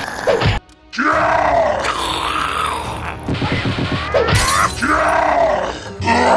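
Strained grunts and groans of a scuffle over background music, with a heavy thud about half a second in and another at about four and a half seconds.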